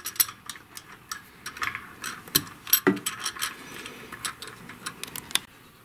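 Irregular runs of sharp clicks from a ratchet screwdriver as the screws holding the boiler's heating-element cover are driven down. The clicking stops a little before the end.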